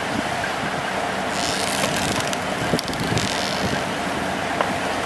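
An engine running steadily, with a high hiss lasting about two seconds in the middle.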